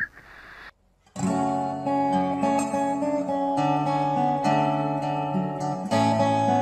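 Acoustic guitar being fingerpicked, a melody of plucked single notes over a bass line, starting about a second in after a brief silence.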